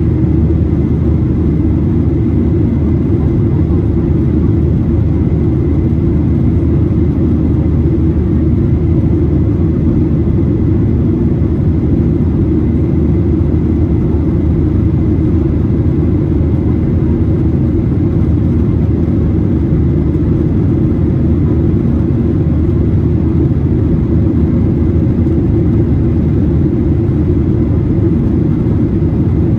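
Cabin noise inside a Boeing 737-800 climbing after takeoff. The CFM56-7B engines and the rushing air make a steady low roar, with a faint steady whine above it.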